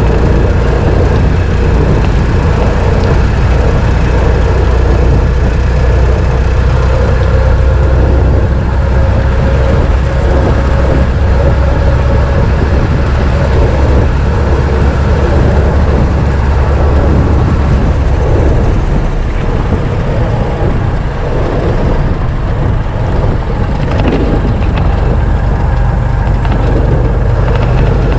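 A 1926 Ford Model T's four-cylinder engine running while the car is driven: a steady low drone with a whine in it. About two-thirds of the way through, the deep part of the drone eases and the sound turns rougher.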